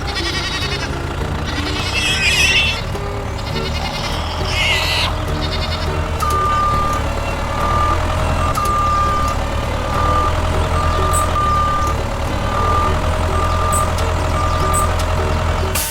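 Animals bleating a few times, then a vehicle's reversing beeper sounding a repeated high beep over a steady low engine hum.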